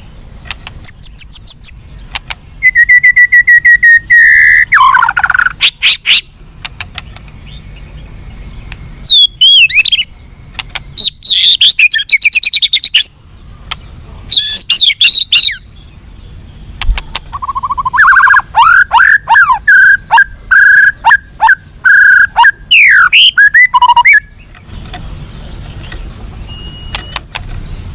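White-rumped shama (murai batu) singing loudly in three long phrases of clear whistles, fast runs of ticks and sweeping slurred notes, with short pauses between them. The song stops a few seconds before the end.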